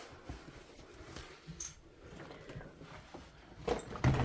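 Faint footsteps and rustling handling noise of a hand-held phone in a small room, with a couple of louder knocks near the end.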